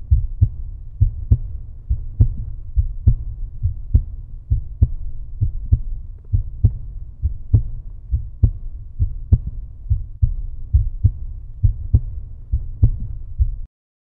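Heartbeat-like pulse from the end-card soundtrack: low double thumps, a little under one pair a second, which cut off suddenly near the end.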